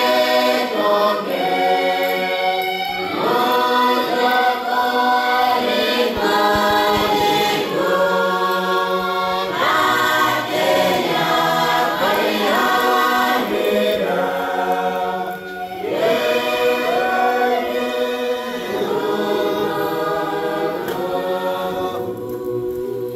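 Church congregation singing a hymn together in many voices; the singing thins out near the end.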